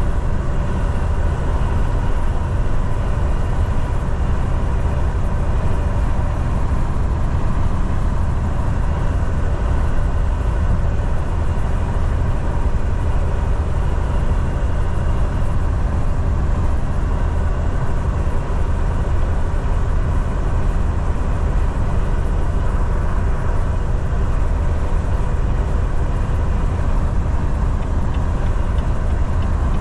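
Steady engine drone and road noise inside a semi-truck's cab while cruising on the highway.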